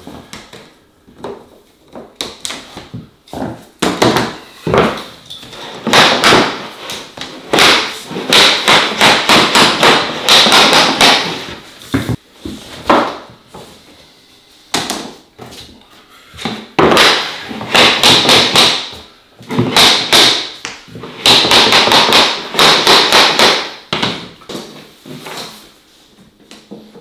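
Luxury vinyl planks being laid and locked together by hand on a subfloor: repeated bursts of rapid knocks and clacks, with short pauses between them.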